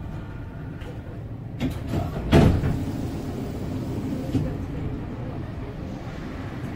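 Solaris Tramino tram's steady low hum, with a few short knocks between about one and a half and two and a half seconds in, the loudest near two and a half seconds.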